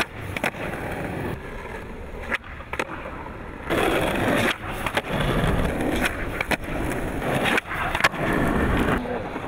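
Skateboard rolling on asphalt with a rough wheel noise, broken by several sharp clacks of the tail popping and the board landing as flip tricks are tried. The rolling grows louder a little past a third of the way in.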